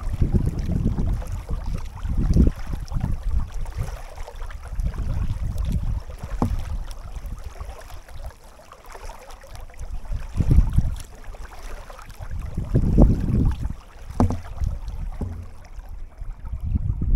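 Wind buffeting an action camera's microphone on a kayak on a river, coming in uneven low rumbling gusts over a faint hiss of moving air and water.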